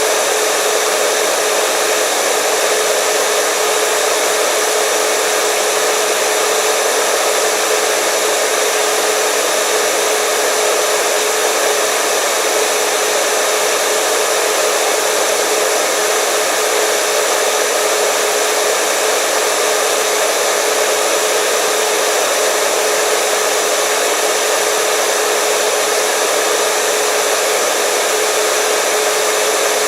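Electric hair dryer running continuously at a steady speed: an even rush of air with a steady motor hum.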